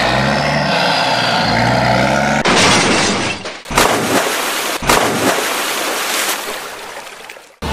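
A vehicle engine running steadily, then cut off about two and a half seconds in by a loud rush of splashing water. Two sharp crashing splashes come about a second apart as toy trucks plunge into water, and the splashing dies away near the end.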